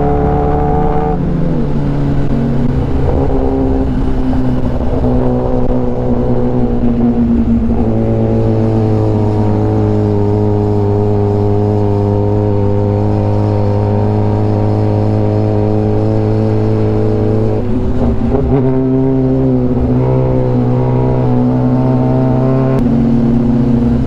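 Kawasaki Ninja ZX-10R inline-four engine running at low, steady revs. Its pitch shifts a few times as the throttle changes, with a long steady stretch in the middle.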